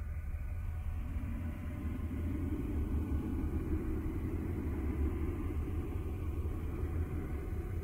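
A deep, steady rumble, strongest in the bass, with a rougher upper layer that swells in about a second in and holds.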